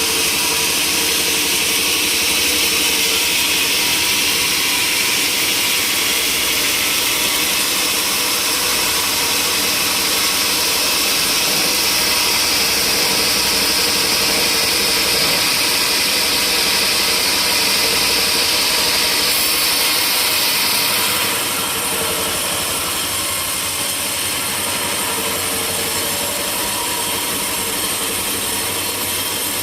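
Sawmill saw running and cutting through a log with a steady, loud hiss over a constant machine hum. About two-thirds of the way through the cut ends: the hiss fades, the sound gets a little quieter, and the saw runs on.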